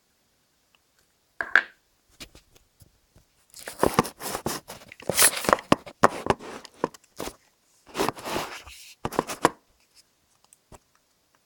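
Packaging being handled, crackling and tearing in irregular bursts, as someone struggles to open a round package.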